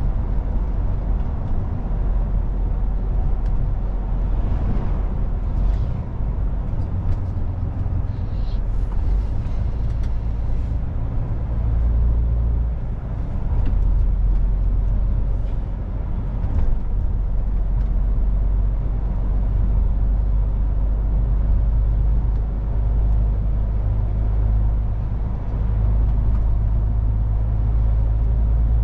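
MAN truck's diesel engine running steadily while driving, with road and tyre noise; a low, even drone.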